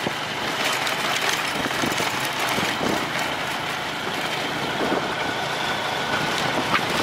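Motorcycle riding over a bumpy dirt road: steady engine and wind rush on the handlebar-mounted camera, with a few short knocks from the bumps.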